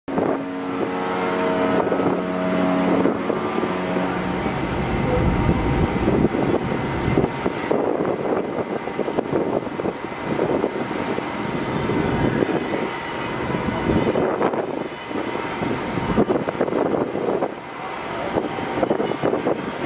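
Wind buffeting the microphone over a busy outdoor harbour background. A steady tone made of several held pitches sounds for the first four seconds or so, then stops.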